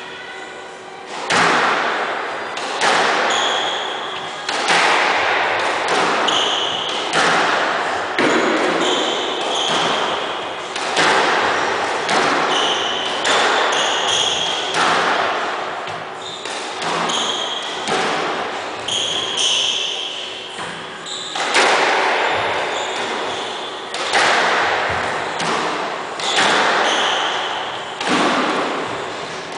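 Squash rally: the ball cracks off racquet strings and court walls about once a second, starting about a second in, each hit echoing around the court. Between the hits, sneakers squeak sharply on the wooden floor.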